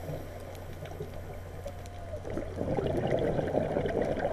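Underwater sound heard through an action camera's housing: a muffled rush of water with gurgling scuba exhaust bubbles, louder from about two and a half seconds in.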